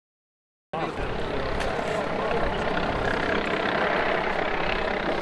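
Steady rumble of a heavy vehicle's engine, cutting in abruptly a little under a second in after dead silence.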